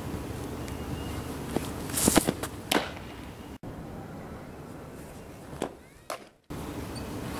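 Fastpitch softballs thrown by a pitcher smacking into a catcher's mitt: a cluster of sharp pops and knocks about two to three seconds in, and two more sharp pops near six seconds, over steady background noise.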